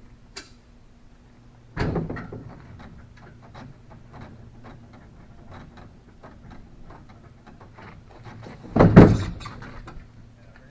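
Two heavy thuds, each trailing off in a scraping rattle, about two seconds in and again near the end, with light knocks and clatter between them, as the fiberglass boat and its fittings are worked loose and shifted on the trailer. A faint steady hum runs underneath.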